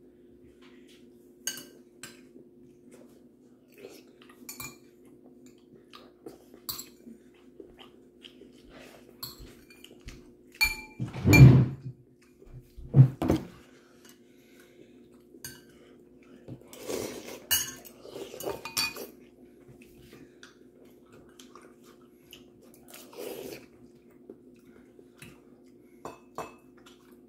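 Metal spoon clinking and scraping against ceramic bowls while eating, in many small scattered taps. Two louder knocks come a little before halfway, and a steady low hum runs underneath.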